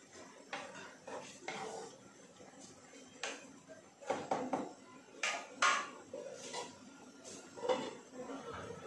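Wooden spatula knocking and scraping against a clay cooking pot as a stew is stirred: a string of irregular clicks and knocks. Near the end, a metal lid is set down on the pot.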